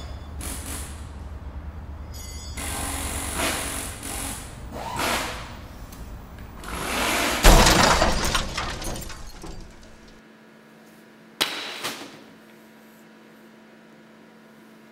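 Mechanical whirring and clattering noise that swells in surges and peaks in a loud crash about seven and a half seconds in. It then drops to a quiet steady hum, broken by one sharp snap.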